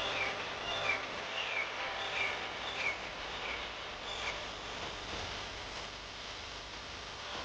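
A bird calling in a string of short, falling notes, about one every 0.7 seconds, stopping a little after four seconds in, over a steady outdoor background hiss.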